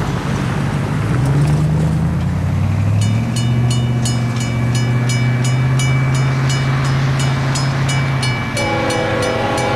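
Mechanical railroad grade-crossing bell starting to ring about three seconds in, striking steadily at about three strokes a second as the crossing signals activate. Under it runs a steady low hum, and near the end a train horn begins to sound.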